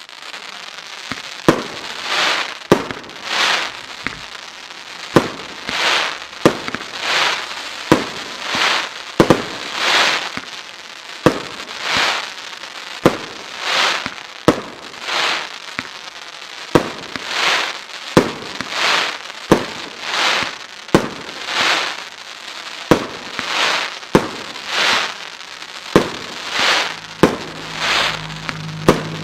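A 25-shot firework cake, El Gato Cracker Dragon Eggs, firing shot after shot at roughly one a second: each sharp launch bang is followed shortly by a swelling burst of crackling stars.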